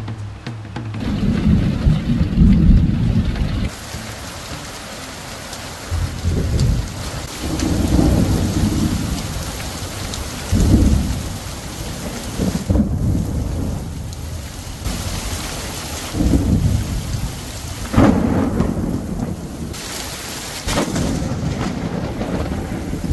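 Thunderstorm: steady heavy rain with thunder rumbling again and again, the loudest claps about two, eleven and eighteen seconds in.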